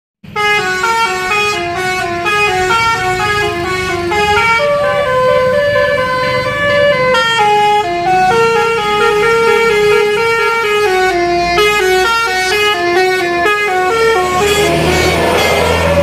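Telolet basuri musical horn on a tour bus playing a fast melody of short stepped notes. Near the end the tune stops and the noise of the bus's engine takes over.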